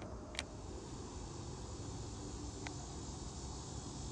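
Steady outdoor ambience with insects buzzing, broken by a sharp click shortly after the start and a fainter click a bit past the middle.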